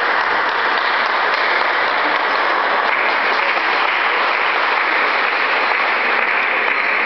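Steady crowd noise filling a sports hall during a table tennis match: a dense, even hiss like applause that holds at one level throughout, with only a few faint clicks standing out from it.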